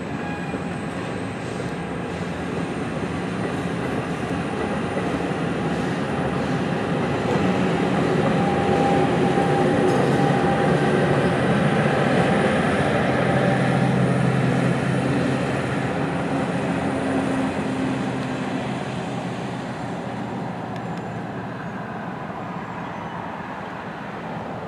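NJ Transit commuter train of Multilevel coaches with an ALP-45DP locomotive running on diesel, moving past the platform. The engine and wheel noise swell to a peak about halfway through and then fade as the train leaves, with a faint high whine throughout.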